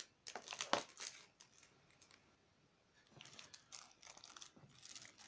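Small clear plastic component bag crinkling as it is handled, with a few sharp clicks and rustles in the first second, then steady crinkling from about three seconds in.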